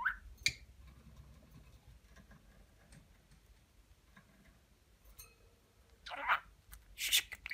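Budgerigar giving short chirps and clicks. There is a brief rising chirp at the start, a long lull with faint ticks, then two quick bursts of chatter about six and seven seconds in.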